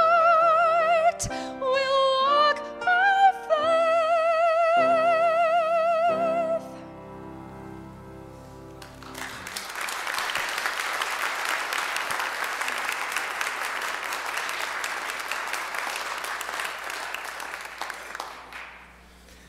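A woman singing the closing phrases of a song with vibrato over piano accompaniment, ending on a long held note; the piano plays on briefly after her voice stops, and then the congregation applauds for about ten seconds.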